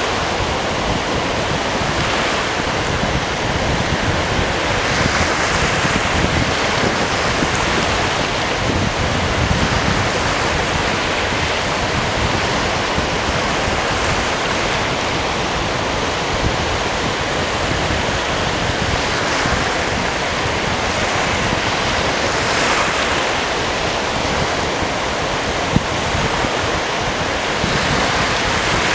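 Steady rush of Lake Michigan surf washing on the beach, mixed with wind buffeting the microphone, swelling and easing every few seconds. A single brief click sounds near the end.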